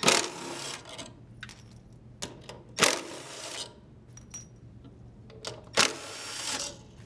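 Cordless impact driver loosening the three bolts that hold a washer's stator to the tub, in three short bursts about three seconds apart, with light metallic clicks from the socket and bolts between them.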